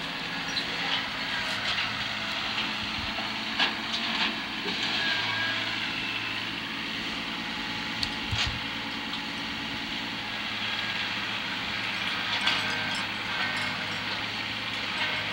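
Small tractor's engine running steadily while driving, with a hiss and scattered knocks and rattles throughout.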